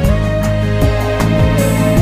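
Instrumental background music: sustained melody notes over a bass line, with a regular beat.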